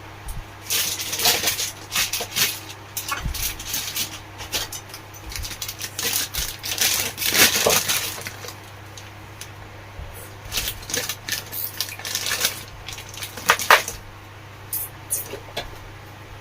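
Metal tools and small table-fan motor parts clinking, tapping and scraping on a workbench during bush replacement, in two long bursts with a sharp clink near the end.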